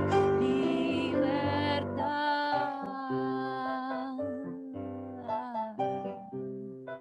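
A song for voice and piano: a Roland RD-700SX digital stage piano plays a slow passage, with a woman's singing voice over it. The music gradually softens toward the end.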